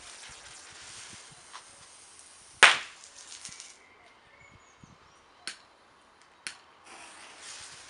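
Comet mini crackling cards, tiny youth firework cards with a fuse, going off: a hiss, then one loud sharp bang about two and a half seconds in, followed by two smaller cracks about three and four seconds later.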